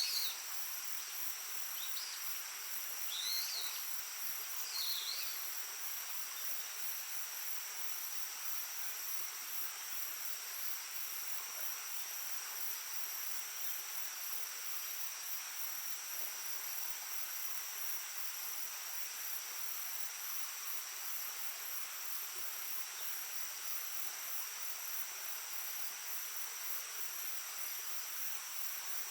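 Babbling shallow stream with a steady rushing hiss. Insects trill continuously in high pitches, and a bird gives a few short chirps in the first few seconds.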